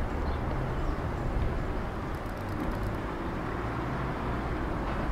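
Outdoor town-street ambience: a steady low rumble under a thin hiss. A brief run of faint rapid ticks comes about two seconds in.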